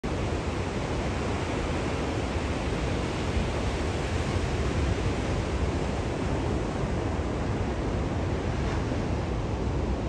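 Atlantic Ocean surf: a steady, even wash of waves with no single breaker standing out.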